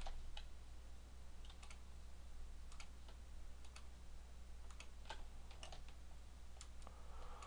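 Scattered sharp clicks of a computer mouse and keyboard, several in close pairs, as mesh edges are Ctrl-clicked off one at a time in 3D modelling software. A low steady hum runs underneath.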